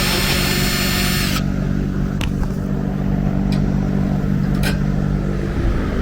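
Drill with a 10 mm socket spinning out a fender bolt, running with a high whine until about a second and a half in and then stopping. A steady low hum goes on underneath, with a few light clicks.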